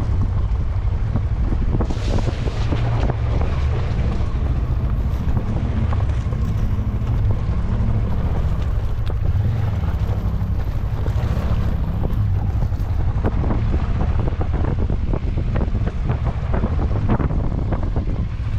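A vehicle engine running while driving off-road, with heavy wind rumbling on the microphone. Scattered knocks come in during the second half.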